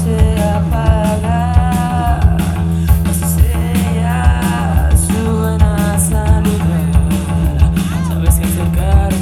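Indie rock band playing live: a lead singer holding long sung notes over a steady drum beat and bass.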